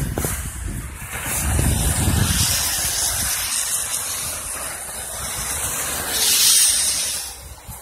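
Cars driving past on a wet, slushy road, their tyres hissing through the water. The loudest moment is one car passing close near the end, its spray rising and then falling away.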